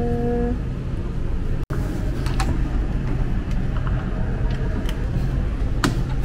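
Steady low rumble with a few sharp plastic clicks as a car door trim panel is fitted back onto the door and pressed home by hand, the clearest click near the end.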